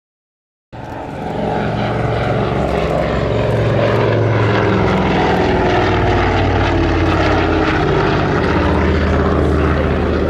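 Avro Anson's two radial piston engines and propellers droning steadily as the aircraft flies its display, cutting in abruptly just under a second in.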